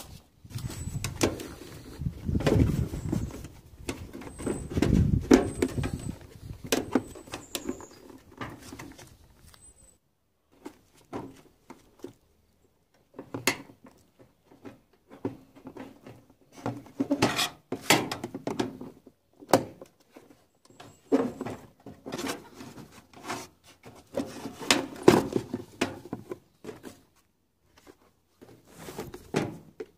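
Irregular knocks, clicks and light clatter of parts and tools being handled on an opened washing machine cabinet. A low rumble on the microphone runs through about the first ten seconds, then stops.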